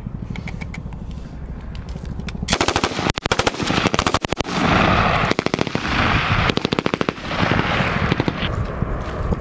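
M249 light machine guns firing 5.56 mm rounds in rapid automatic bursts. Fainter scattered shots are heard first, then loud bursts begin about two and a half seconds in and go on in quick strings with short pauses.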